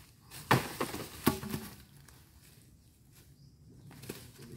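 Two heavy knocks about a second apart, the second with a short rattle after it, as a coconut-palm log is handled and set down on the ground.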